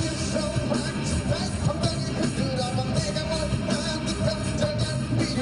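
Live rock band playing, with electric guitar, bass and drums, and a man's voice singing along over it.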